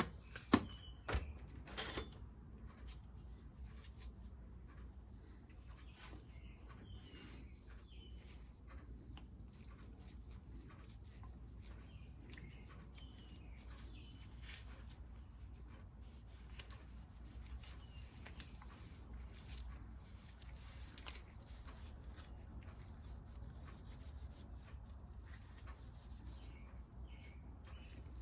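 Faint rubbing of wood polish and conditioner being worked by hand into a walnut screwdriver handle, with a few sharp clicks in the first two seconds. Small birds chirp faintly in the background.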